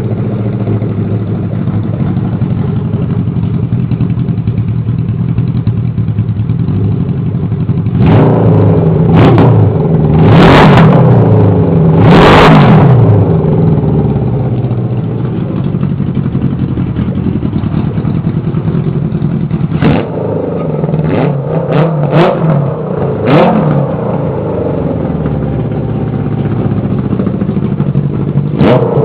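Kawasaki KZ650 inline four-cylinder engine, on its first run after an ATV conversion, idling on a temporary open exhaust with no air filters. It is revved up and down twice about eight to thirteen seconds in, then given four quick throttle blips around twenty seconds in and one more near the end.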